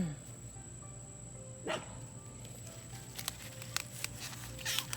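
A single short animal call about a second and a half in, against a low steady background with a few faint clicks.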